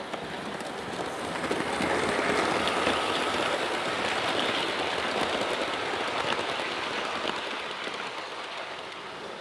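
OO gauge model train, a locomotive hauling Bachmann Mk1 coaches, running past on the track: the whir of the motor and the rattle of wheels on rail. It grows louder over the first couple of seconds, passes closest about two to four seconds in, then slowly fades away.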